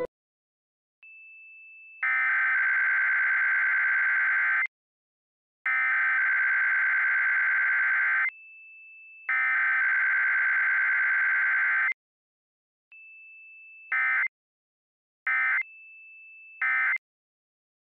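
Emergency Alert System SAME header tones: three long, loud, buzzing digital data bursts about a second apart, then three short end-of-message bursts. A faint steady high tone sounds in some of the gaps. Together they encode a Required Monthly Test alert.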